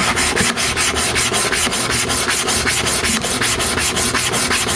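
Hair-clipper comb blade rubbed back and forth on a sharpening stone coated with abrasive powder and oil, a steady gritty rasping in quick, even strokes of several a second.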